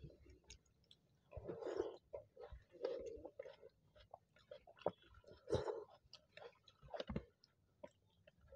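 People chewing and eating soft kochuri and potato curry with their hands: quiet, wet mouth sounds and small clicks and smacks coming and going, with a few short louder moments.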